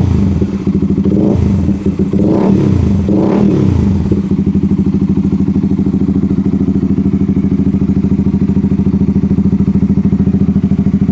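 Honda CBR150R single-cylinder engine through an SC-Project aftermarket exhaust, revved in about four quick throttle blips, then settling to a steady idle.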